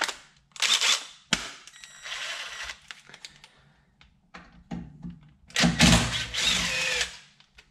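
Cordless power driver with an Allen bit running in short bursts, the longest and loudest near the end, as it backs out an Allen screw holding the cylinder head of a Gast PCA-10 compressor.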